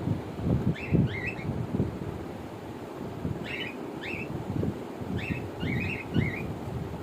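Cockatiels giving short, rising chirps in small clusters: a few about a second in, more near the middle, and a longer run near the end. Under them, a louder, irregular low rumble of wind buffeting the microphone.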